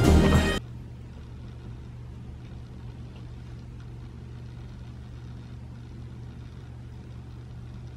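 Music stops about half a second in, leaving the steady low hum of a car heard from inside its cabin.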